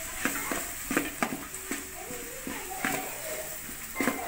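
Metal ladle stirring sliced onions in a large aluminium cooking pot, with repeated scrapes and knocks against the pot's side.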